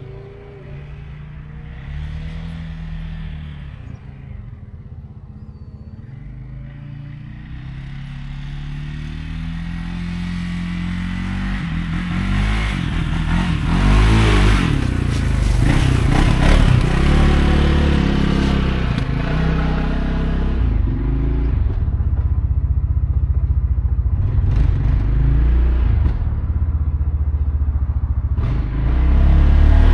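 CFMOTO CForce 600 ATV engine running while the quad is ridden, its pitch rising and falling as the throttle is worked. It grows steadily louder over several seconds before the middle of the clip and stays loud after that.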